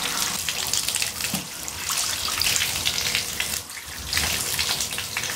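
Bathtub faucet running, the stream splashing over a cap held under it as the cap is rinsed out. The splashing dips briefly about three and a half seconds in, then comes back.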